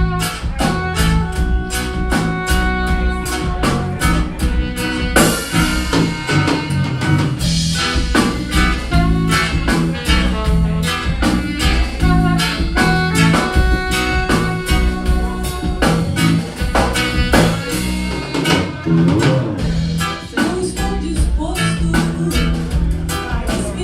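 Band playing the song's instrumental introduction without vocals: drum kit keeping a steady beat under electric bass, with sustained melody lines from an alto saxophone.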